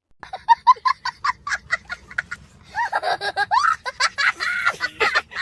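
Laughter: a quick run of short, high-pitched 'ha' sounds, about five a second, followed by longer, wavering laughter.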